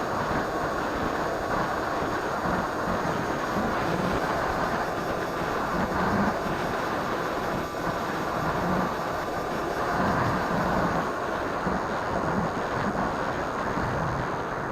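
Steady rushing noise recorded by a keychain camera aboard a flying electric RC plane: wind over the microphone mixed with the drone of the plane's motor and propeller.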